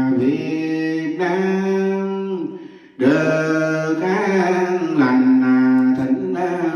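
A man chanting a Vietnamese Buddhist prayer on slow, long-held notes. It breaks off briefly about two and a half seconds in, then resumes.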